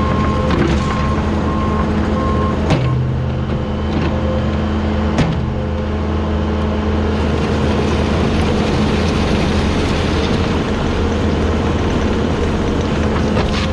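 Compact track loader's diesel engine running steadily under work, its reversing alarm beeping for the first couple of seconds as it backs up. Two sharp metallic knocks come a few seconds apart early on.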